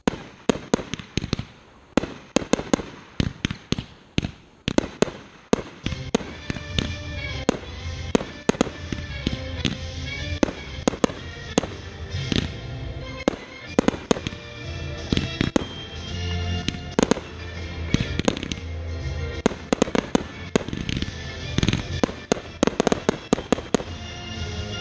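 Fireworks shells bursting in quick succession, the bangs coming faster after the first few seconds into a dense barrage, with music playing underneath.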